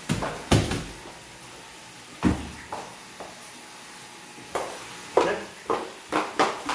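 Sharp knocks and thumps on a wooden staircase as cardboard boxes are handled, then a faster run of footsteps on the wooden stairs, about two a second, from about halfway in.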